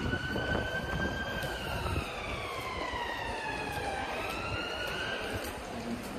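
Emergency vehicle siren wailing in slow sweeps: it peaks about a second in, falls for about three seconds, then rises again and fades near the end, over a steady low rumble of street traffic.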